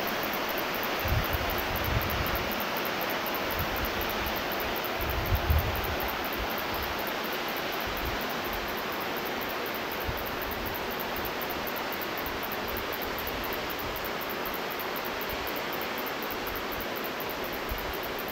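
Steady rushing outdoor noise, with low buffets of wind on the microphone about one, two and five seconds in.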